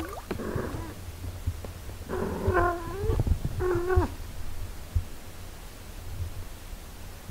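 A cat meowing twice: a longer meow that falls in pitch about two seconds in, then a shorter one about three and a half seconds in, over a steady low hum.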